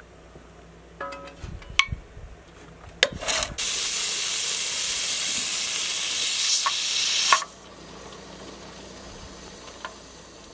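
Pressure canner venting: steam hisses steadily from the open vent pipe for about four seconds, then cuts off suddenly with a click as the weighted pressure regulator is set on the pipe. A few light metal clicks come before the hiss.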